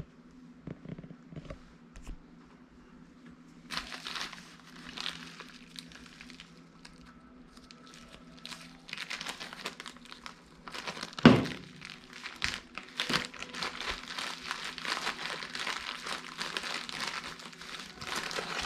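Packaging being crinkled and handled: scattered rustles at first, then dense continuous crinkling in the second half, with one sharp knock about eleven seconds in. A faint steady low hum runs underneath.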